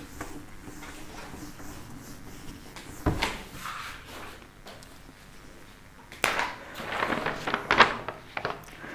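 Handling noises: a single thump about three seconds in, then a cluster of knocks and rustles in the last three seconds.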